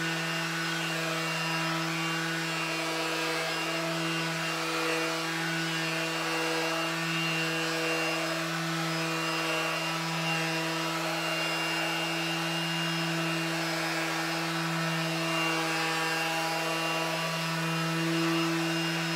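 Porter-Cable 20-volt cordless 5-inch random orbital palm sander, a single-speed tool, running steadily while buffing hard wax oil into maple stair treads. It makes a steady motor hum with a slight, slow waver.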